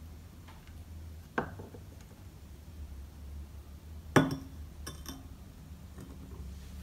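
Footed glass mug knocking and clinking against its ceramic saucer as it is handled. There is a light knock about a second and a half in, a louder clink around four seconds in, then a few faint clinks.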